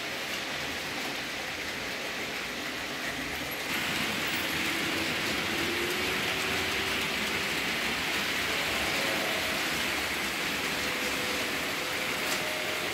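Märklin HO model trains running: a steady hiss of metal wheels rolling on the track, with a faint whine from the locomotive motors. The rolling noise grows louder about four seconds in.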